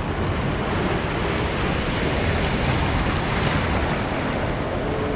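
Sea surf washing over and around shoreline rocks, a steady rushing wash with a low rumble of wind buffeting the microphone.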